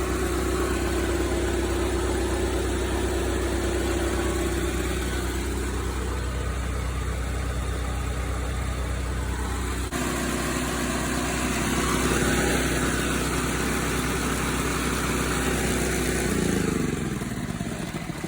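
Gas engine-driven 30-gallon service truck air compressor running steadily, its sound shifting abruptly about ten seconds in. Near the end it is shut off and its pitch falls as the engine spins down.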